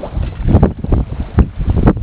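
Small wood fire crackling in a B-6君 compact fire grill, with irregular snaps and a few sharp pops, the loudest about half a second in and near the end. Wind rumbles on the microphone underneath.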